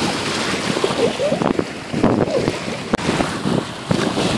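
Wind gusting across the microphone over small lake waves lapping and splashing at the shoreline, with irregular little splashes throughout.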